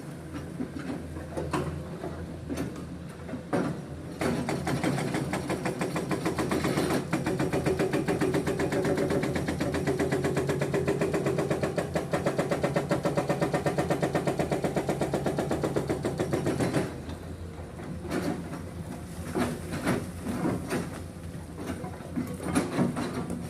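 Excavator's hydraulic breaker hammering stone in a fast, even rhythm from about four seconds in until about seventeen seconds in. Before and after the hammering, the excavator's engine runs with scattered knocks of rock.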